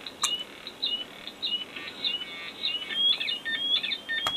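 A simple transistor synthesizer of astable multivibrators (BC547 square-wave oscillators) making short, rising, bird-like chirps that repeat a little under twice a second. About three seconds in, the pattern quickens into swooping, warbling tones. There is a sharp click near the start and another near the end.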